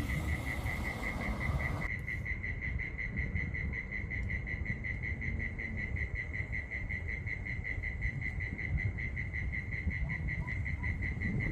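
A night insect chirps in a steady, fast pulsing trill at one high pitch, over a low rumbling noise. The upper hiss drops away suddenly about two seconds in.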